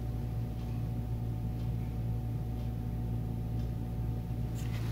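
Steady low mechanical hum at a constant pitch, with a few faint light ticks near the end.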